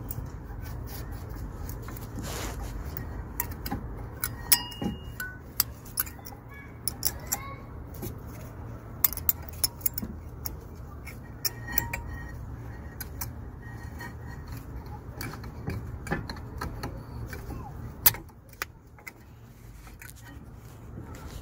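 A new steel-backed brake pad clicking and clinking against the front brake caliper carrier of a BMW E90 as it is worked into place, in many short irregular metallic taps with a few brief rings. A steady low hum runs underneath.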